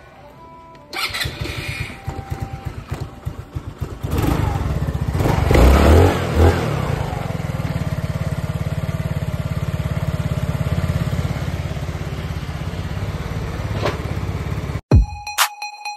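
A 125 cc motorcycle engine is cranked, catches about four seconds in and revs briefly, then idles steadily until the sound cuts off near the end.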